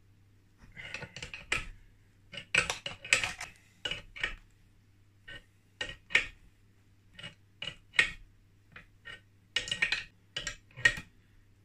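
Metal hand tools clinking on a crankshaft puller and engine casing as a spanner works the puller's nut: irregular sharp metallic clinks with a brief ring, some single and some in quick clusters of three or four.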